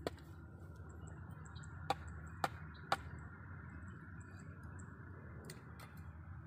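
Four sharp clicks, one right at the start and three about half a second apart around two to three seconds in, over a steady low background rumble with faint high chirps.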